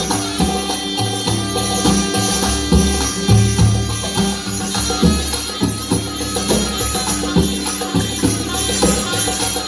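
Music with a steady drum beat, jingling percussion and sustained low notes.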